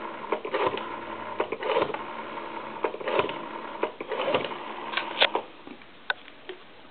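Rotary dial of an ITT desk telephone being wound round and spinning back, digit after digit, each return a quick whirring run of clicks. The dialing stops about five seconds in, with one more sharp click a second later.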